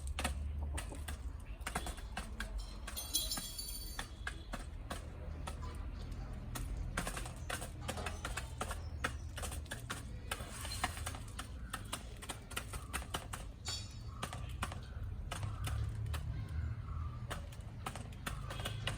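Backyard chickens pecking at feed: rapid, irregular sharp taps of beaks on the food and ground, with a few short clucks and chirps among them.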